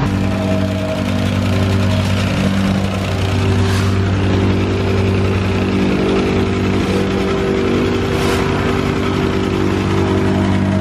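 The engine of heavy paving equipment running steadily at an even speed.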